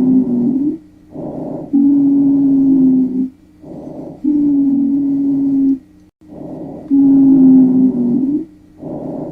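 Recorded abnormal breath sounds: a regular cycle of breaths about every two and a half seconds, each a short softer rushing phase followed by a longer, louder phase carrying a steady low-pitched musical tone.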